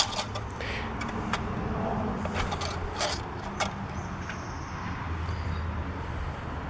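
Engine oil dipstick being pulled out of its tube and pushed back in, a few light clicks and scrapes, over a steady low hum.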